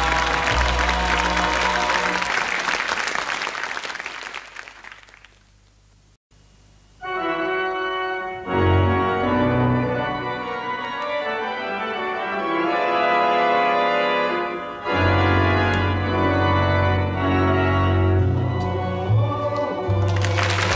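Studio audience applause over closing music, fading out over the first few seconds. After a short silence, an organ starts playing sustained chords of a theme tune about seven seconds in, with a deep bass part coming in about halfway.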